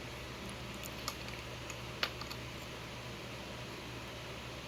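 A few faint, light clicks and taps of small metal parts and tools being handled while a Medeco lock cylinder is taken apart, clearest about two seconds in, over a steady low hum.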